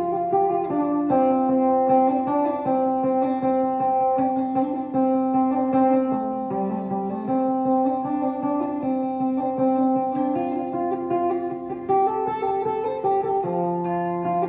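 Instrumental background music carried by a plucked guitar, its notes changing about every second at a steady level.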